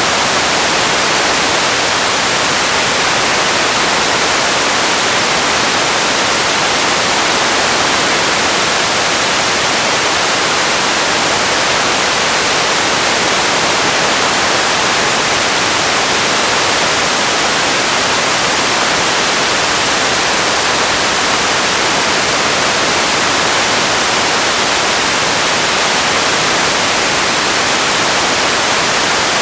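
Steady, even hiss of white noise, like static, unchanging throughout and strongest in the upper range.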